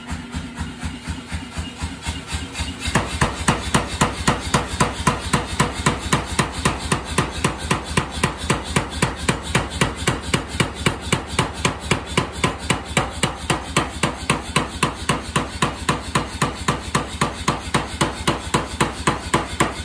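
Mechanical power hammer striking a red-hot wrought iron wagon-wheel tire in quick, even blows, about four a second, planishing the iron flat and smooth. The blows are lighter at first and hit harder from about three seconds in. They stop at the very end.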